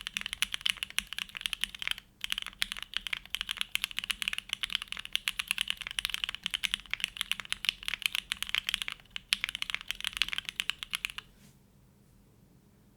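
Fast typing on a plateless Neo65 mechanical keyboard with hand-lubed Gateron Oil King linear switches and GMK Grand Prix keycaps: a dense run of muted keystrokes, with a brief pause about two seconds in. The typing stops about eleven seconds in.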